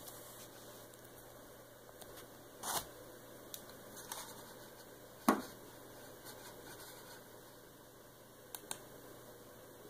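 Quiet room tone with faint hiss and hum, broken by a few short clicks and knocks, typical of handling a recording device. The loudest knock comes about five seconds in, and two quick clicks come near the end.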